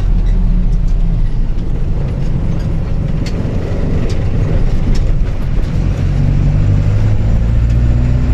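Steady engine and road rumble from inside a moving vehicle, the engine note rising near the end as it speeds up.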